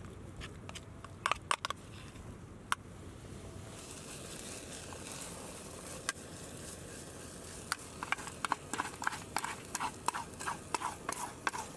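A few scattered light clicks and knocks, then, past halfway, a quick irregular run of light taps and clatters.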